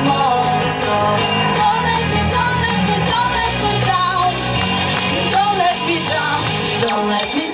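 Pop song played loud through PA speakers, with a woman singing the lead line into a microphone over the band's backing.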